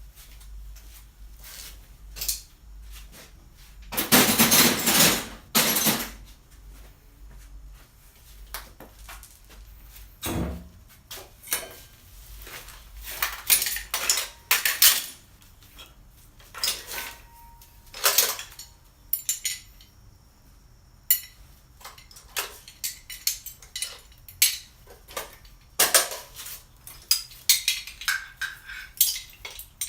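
Metal C-clamps clanking and clinking against one another as they are handled and put away from a pile, in irregular bursts of clatter with the loudest clusters about four seconds in, near the middle, and a few seconds before the end.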